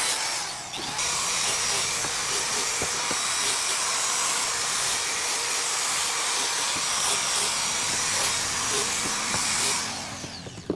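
Electric power tool working wood, a steady high-pitched motor noise that dies away near the end.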